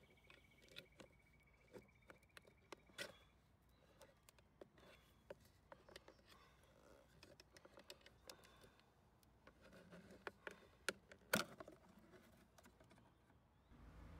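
Plastic trim removal tools prying at the glass of a 2002 Alfa Romeo 147 side mirror: quiet, irregular clicks and taps of plastic on plastic as the glass is worked loose, with one sharper click a little after eleven seconds.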